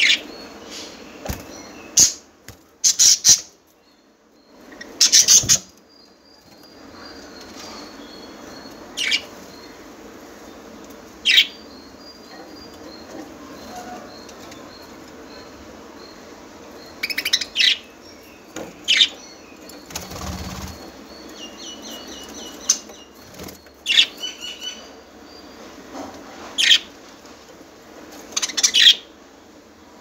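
Caged budgerigars calling: about a dozen short, sharp chirps scattered throughout, over a fainter running warble and chatter, with occasional wing flutters.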